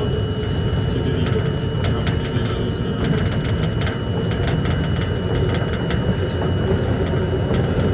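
New York City subway train running on elevated track, a steady rumble of motors and wheels with a thin steady whine, and a run of rapid clicks through the middle.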